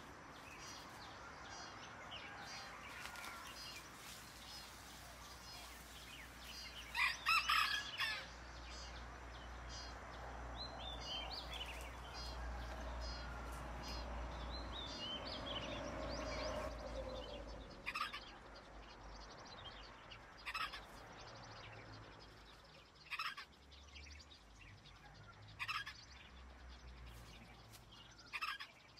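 A rooster crowing and chickens clucking in the background, with a cluster of loud short calls about seven seconds in and single ones scattered later.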